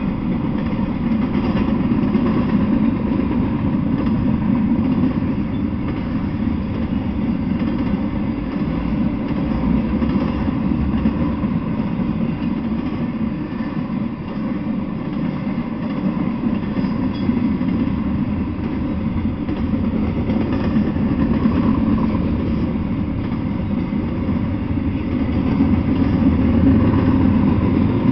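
Intermodal freight train of double-stack container and trailer well cars rolling past, its steel wheels on the rails making a steady rumble.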